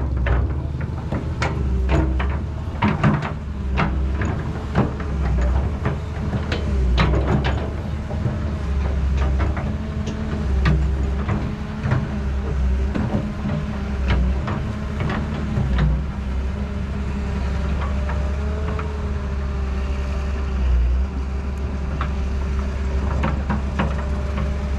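Excavator at work: its engine runs steadily under frequent knocks and clanks, which grow sparse about two-thirds of the way through, leaving mostly the steady engine hum.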